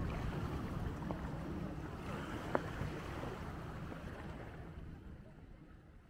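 Steady beach ambience of wind rumbling on the microphone and surf, with one sharp click about two and a half seconds in, fading out near the end.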